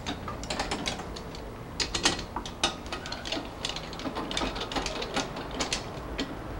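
Irregular light metallic clicks and taps of hand tools being handled against metal parts at a workbench fixture, a few to several a second, some louder than others.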